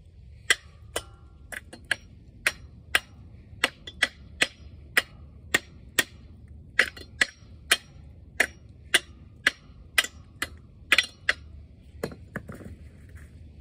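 Steady metal-on-metal tapping on a rusted Wisconsin V4 engine, about two sharp ringing strikes a second. The strikes stop near the end, as a stuck part is worked at.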